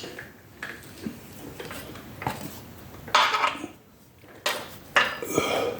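Metal hand tools clinking and scraping as they are handled, in a few short clattering bursts, the loudest from about three seconds in and near the end.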